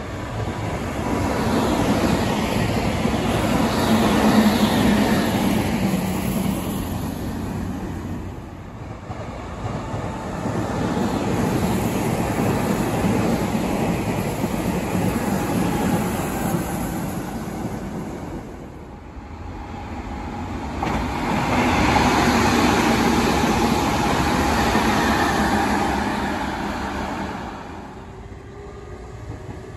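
Meitetsu electric trains running past: a long swell of rail rumble and wheel noise with a steady motor hum, easing around the middle, then a second loud pass in the later part that fades near the end.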